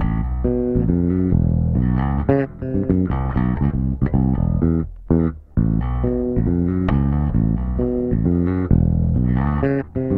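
Electric bass guitar, a 1988 Samick with Wilkinson MWPB/MWJB split-coil and single-coil pickups wired passive, playing a quick line of low notes that change several times a second, with a short break about five seconds in.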